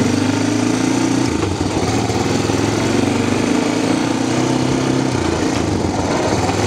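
Honda ATV engine running while riding at low speed, steady, with small shifts in pitch.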